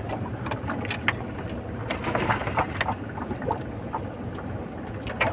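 Ambient sound aboard a small boat at sea: a steady low rumble with scattered light clicks and knocks.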